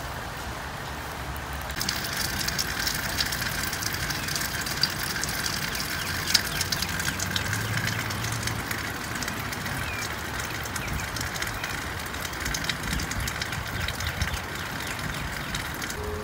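Steady rain falling on wet grass and leaves, a dense patter of fine drops that grows louder about two seconds in, over a low uneven rumble.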